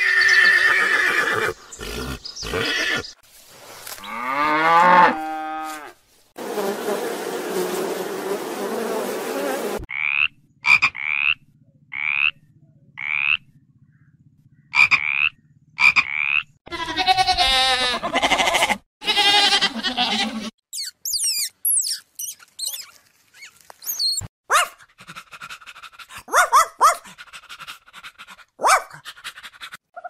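A horse whinnying, one call sliding down in pitch. Then a frog calling in a series of short, rising chirps about once a second, followed by longer croaking calls.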